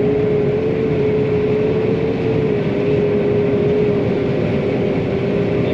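John Deere 9500 combine running steadily under harvest, an even mechanical rumble with one steady whine held throughout.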